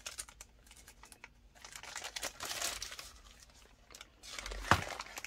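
Plastic mailer bag crinkling as it is handled and pulled open, in scattered bursts, with one sharp tap near the end.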